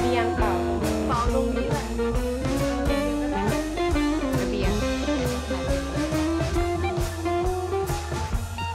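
Background music: a blues-style guitar playing bending lines over a steady drum beat.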